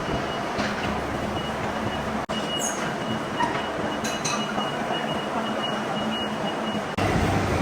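Steady machine-shop noise, with a faint high whine over a dense mechanical rumble. It cuts out for an instant about two seconds in, and turns louder and deeper near the end.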